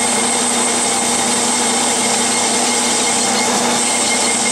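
Clausing metal lathe running at 400 RPM while a cutoff tool plunge-cuts a groove into a spinning aluminum pulley blank: a steady machine hum with the hiss of the cut.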